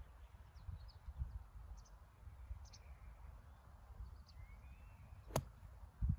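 One sharp strike about five seconds in: a golf club (wedge) hitting down into the sand under the ball on a greenside bunker shot. A low rumble and faint high bird chirps run underneath.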